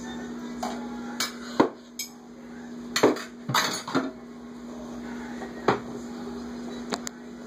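Dishes being handled in a stainless-steel kitchen sink: a plastic container, a cup and a glass bowl knocking and clinking against each other and the sink, about eight irregular knocks. A steady low hum runs underneath.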